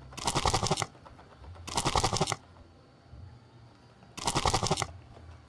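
Three short bursts of rapid clicking rattle, like toy packaging being shaken or handled, about two seconds apart.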